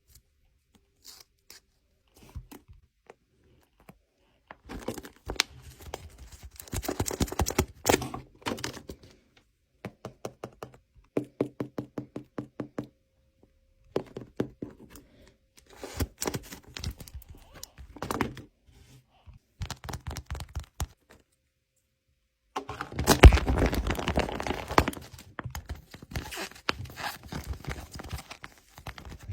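Paper being handled close up: bursts of crinkling and tearing, with thunks and knocks and a quick run of even taps partway through.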